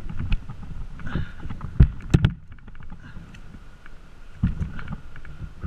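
Hand pruning saw cutting through a tree limb, with a couple of loud sharp knocks about two seconds in.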